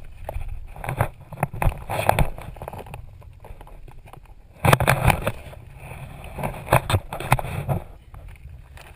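Someone crawling through a crawlspace, with rustling and scraping over plastic sheeting on the ground and irregular knocks and bumps of the body and camera. The loudest burst of scraping comes about five seconds in.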